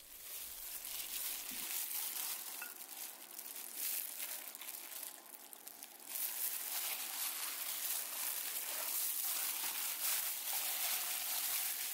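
Disposable plastic gloves crinkling and rustling as hands handle and rub a raw, sauce-coated whole chicken in a bowl, a little louder after about six seconds.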